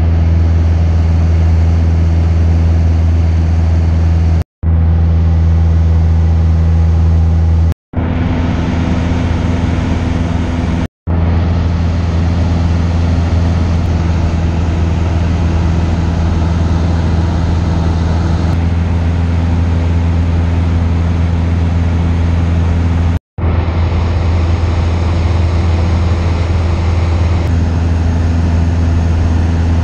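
Cessna 172's engine and propeller droning steadily in cruise flight, heard inside the cabin as a strong low hum under a broad rush of air. The drone is broken by four very short gaps where the recording cuts.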